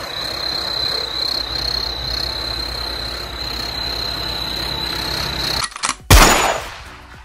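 John Deere 4x4 tractor engine running with a steady low pulsing rumble, under a thin steady high chirping of crickets. About six seconds in, the sound cuts off and a single loud boom with a falling pitch follows.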